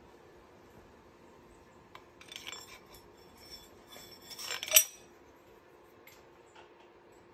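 Steel pushrods being slid down into the pushrod tubes of a VW Type 1 cylinder head, rattling and clinking against metal in two bursts, the second louder and ending in a sharp clink just before halfway.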